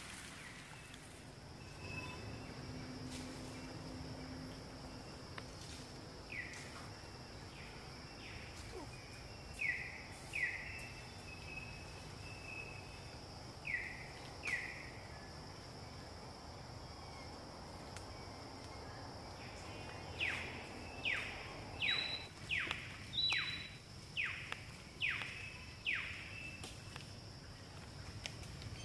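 Forest ambience: a steady high-pitched insect drone, with short downward-sliding chirps. They come singly a few times, then in a quick run of about two a second near the end.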